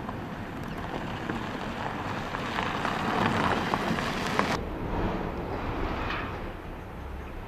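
Freight train rolling past, a steady rushing noise with rapid wheel clicks that builds up and then drops away abruptly about four and a half seconds in.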